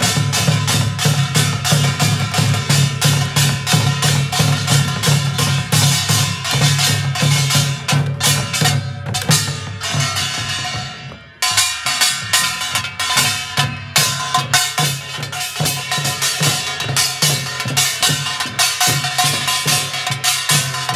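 Korean nongak farmers' band playing fast, dense rhythms: a small brass gong (kkwaenggwari) clanging, with barrel drums (buk) and small hand drums (sogo). The music fades briefly about halfway through and comes back suddenly.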